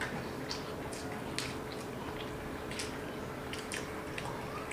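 Two people eating misal pav by hand: quiet chewing with scattered short, wet clicks and smacks, about nine over a few seconds.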